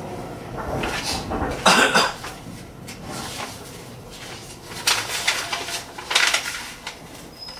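Tobu Railway commuter train running along the track, heard from the driver's cab: a steady running noise broken by loud metallic clanks and rattles, the loudest about two seconds in and again around five and six seconds.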